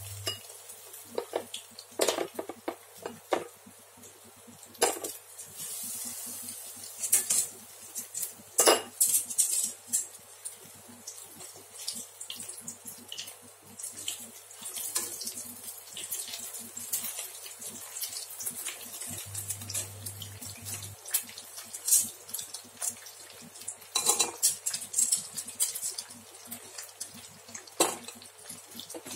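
Batter-dipped slices of sticky rice cake frying in oil in a wok: a steady hissing sizzle, with repeated clicks and clinks of metal tongs against the pan and plate.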